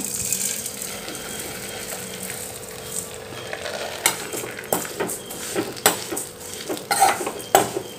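Red flattened rice (aval) poured into a hot aluminium kadai with a little ghee, with a steady rustling hiss, then stirred with a metal spoon: irregular clinks and scrapes of the spoon against the pan from about three seconds in, as the flakes begin to roast.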